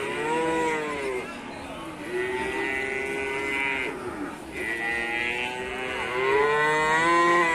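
Cattle mooing: several long, pitched calls one after another, partly overlapping, with the loudest call near the end.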